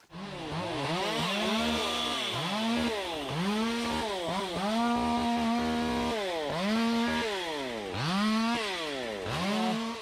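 Two-stroke chainsaw cutting, its throttle squeezed up to full speed and let off again over and over, roughly once a second.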